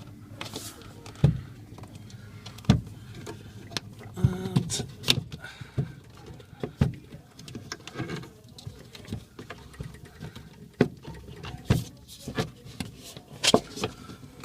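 Irregular knocks and scrapes as a Bev Max 4 vending machine's condenser assembly is worked forward by hand, its parts banging against the cabinet about a dozen times.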